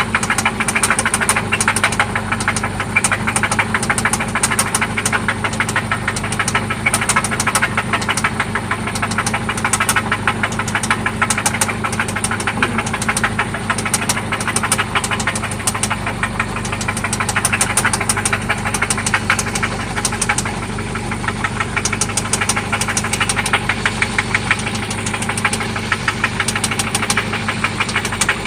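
1995 Toyota Celica ST's four-cylinder engine running steadily with a rapid, even knocking. This knock is still there after an oil change and new spark plugs.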